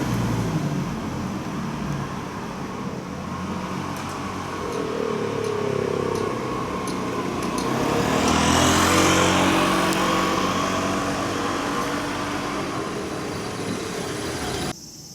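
A motor vehicle passing close by: engine and tyre noise builds to a peak about halfway through, then eases off, and the sound cuts off abruptly near the end.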